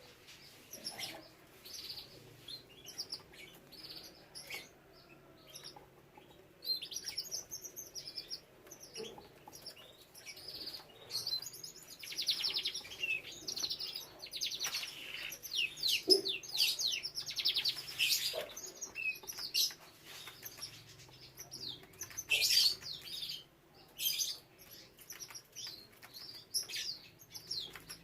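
Domestic canaries singing: rapid high trills and chirps that keep going with short pauses, at their busiest and loudest in the middle of the stretch.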